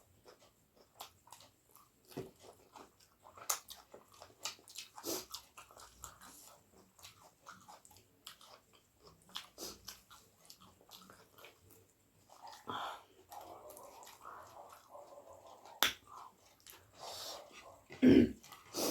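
A person chewing and eating close to the microphone: scattered wet smacks, clicks and mouth noises. Near the end comes a louder low thump.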